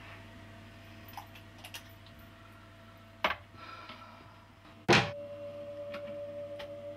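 Horror-film sound design: a low droning ambience with a few faint clicks, a sharp knock about three seconds in, then a loud hit about five seconds in that gives way to one steady ringing tone.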